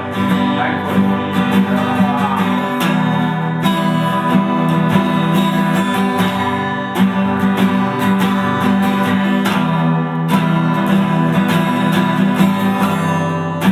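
Two guitars playing an instrumental break without vocals: a rhythm guitar strumming chords with a lead guitar playing over it.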